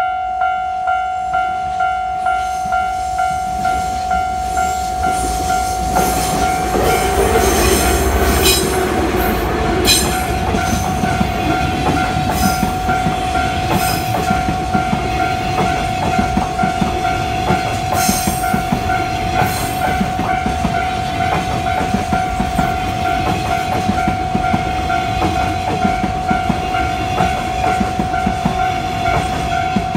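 Level crossing warning bell ringing steadily, about one and a half dings a second, as a freight train passes. From about six seconds in, the low rumble of the double-headed DE10 diesel-hydraulic locomotives comes by, followed by the long string of rail-carrying flatcars, their wheels clicking over the rail joints.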